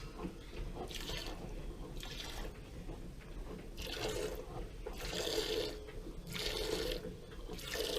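Streams of milk squirting into a pail as a cow is milked by hand, in a string of short hissing spurts about every half second to a second.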